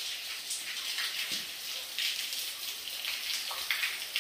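Steady hiss of running water, with faint irregular taps in it.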